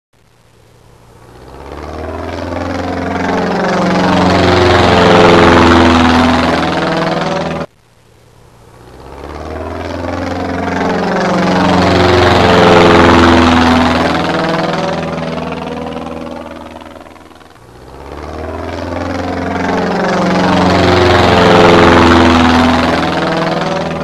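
Recorded aircraft flyby sound, looped: it swells to a loud, sweeping rush and fades away three times over. The first pass cuts off abruptly about eight seconds in.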